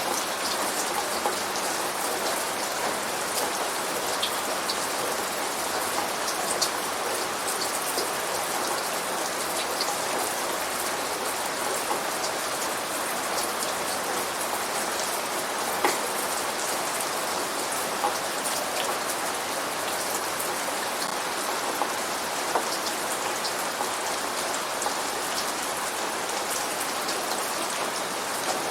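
Steady rain falling, with scattered sharp ticks of single drops hitting a surface.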